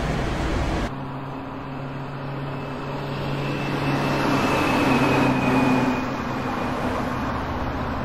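Wind on the microphone for about a second, then a motor vehicle's engine running steadily: a low hum with a faint high whine. It gets louder toward the middle and eases off again.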